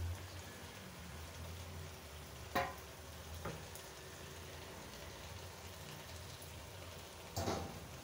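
Thick carrot halwa sizzling faintly in a nonstick wok, stirred with a slotted metal spoon that knocks against the pan about two and a half seconds in, once more a second later, and again near the end. A low steady hum runs underneath.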